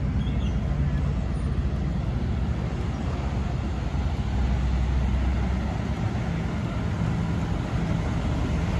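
A vehicle engine running steadily: a continuous low rumble with a faint hum, and a wash of road noise over it.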